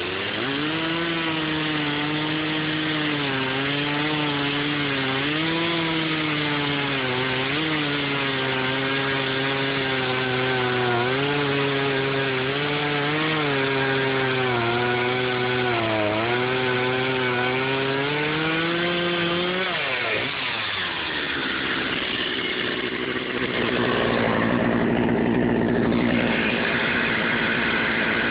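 Poulan 2055 two-stroke chainsaw (32cc) cutting through a large log under load, its engine pitch dipping and recovering as the chain bites. About twenty seconds in, the throttle is let off and the saw drops back to a lower idle.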